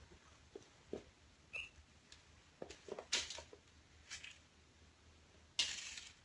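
Faint, scattered taps and knocks of kittens playing with small toys and balls on a hard floor, with a short rustle near the end.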